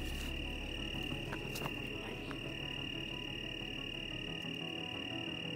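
Crickets chirring in a steady high-pitched night chorus, with a low rumble underneath that drops away about four seconds in.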